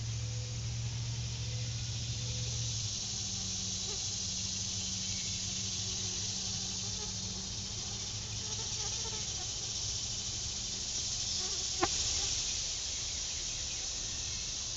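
Steady night-time insect chorus, crickets and the like, heard as an even high hiss, over a low steady hum. A single sharp click comes about twelve seconds in.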